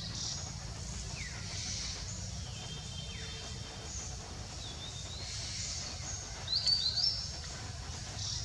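Outdoor ambience of small birds chirping and whistling over a steady low rumble. A few short falling whistles come in the first few seconds, and a louder quick run of chirps comes about six and a half seconds in.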